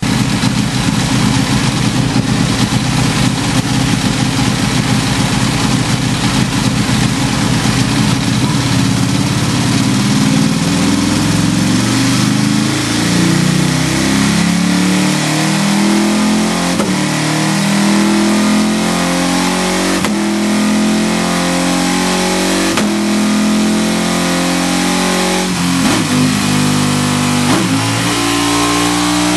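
Ducati 1299 Panigale's Superquadro L-twin engine on a dyno, running steadily for the first several seconds and then revving up in repeated rising steps, each broken briefly by a quickshifter gear change.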